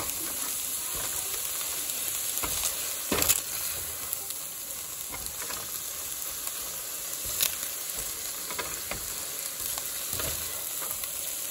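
Tofu scramble with diced onions sizzling steadily in a hot skillet, a spatula stirring it and knocking against the pan a few times, the loudest knock about three seconds in.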